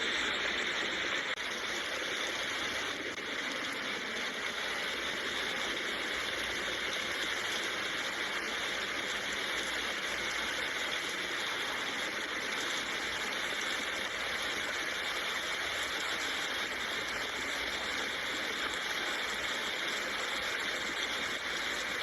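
Steady rain falling, an even hiss with no breaks or separate drops standing out.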